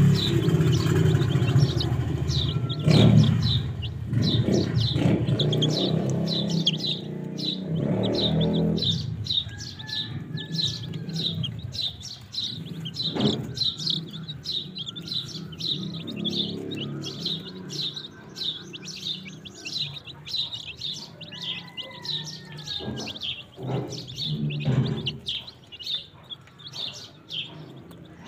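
A crowd of young chicks peeping continuously, many short high peeps overlapping several times a second. A low hum sits under them for the first several seconds, then fades.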